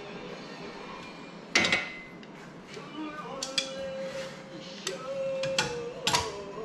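Sharp clinks and knocks of hard parts and tools being handled on a workbench, about six of them, the loudest about one and a half seconds in. A steady tone sounds through the second half.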